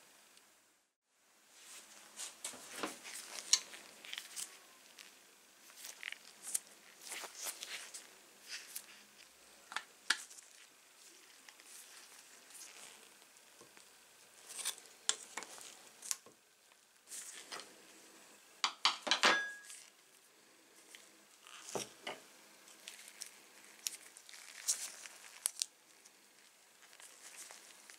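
Metal-on-metal clinks and taps of a small spanner and pliers working the pivot nut off a pair of old tin snips, with the snips shifting on a hard surface. Scattered sharp clicks throughout, with a quick run of them about two-thirds of the way through.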